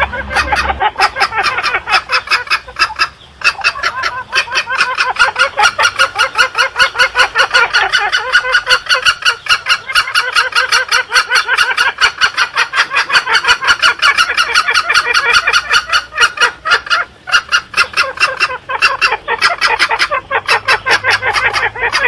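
Green junglefowl calls played as a hunting lure: a fast, unbroken run of clucking notes, many a second, that breaks off briefly about three seconds in.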